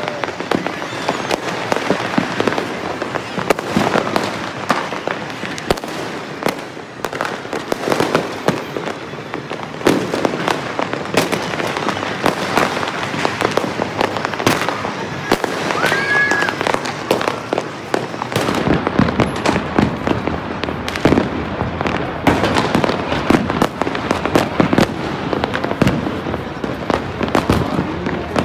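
New Year's fireworks and firecrackers going off across a city at once: a dense, unbroken barrage of overlapping bangs and crackles. A short rising whistle sounds about halfway through.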